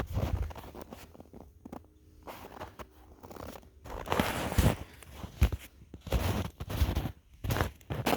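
Footsteps crunching in snow: a few scattered steps at first, then a steady walking pace of about two steps a second from about halfway through.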